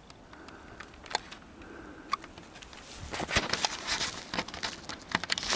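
Rustling and crackling handling noise: a few sharp clicks, then a busier run of crackles from about three seconds in, like movement through brush and gear being handled. No gunshot is heard.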